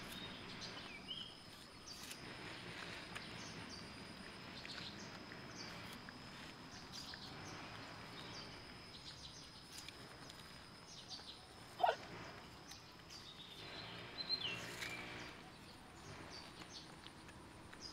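Faint outdoor ambience: a steady high tone, scattered small clicks and a few short chirps, with one short rising squeak about twelve seconds in as the loudest sound.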